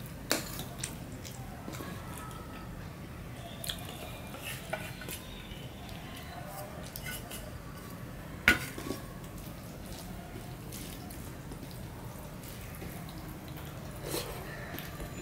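Sharp clinks of a metal ladle against steel plates and bowls as dal is served, the loudest about eight and a half seconds in. Between them come softer wet sounds of a hand mixing dal into rice on a steel plate.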